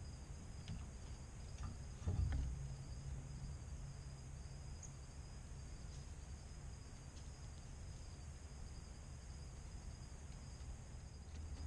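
Crickets singing in a steady, high-pitched, unbroken trill over a low background rumble, with a single thump about two seconds in.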